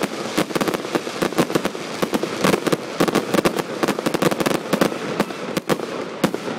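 Fireworks going off in a rapid volley: many sharp bangs and pops, irregular and close together, over a steady hiss.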